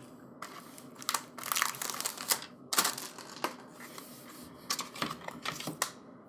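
Plastic CD packaging being handled: irregular crinkling of the torn shrink-wrap and clicks of the plastic case, in four short flurries.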